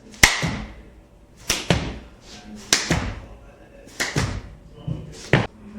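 Five sharp whooshing thuds at an even pace, about one every 1.3 seconds, each dying away quickly.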